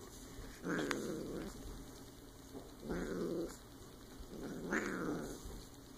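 Silver Bengal kitten growling three times, each growl a low, rough buzz under a second long: possessive play-growling over a toy it is holding on to.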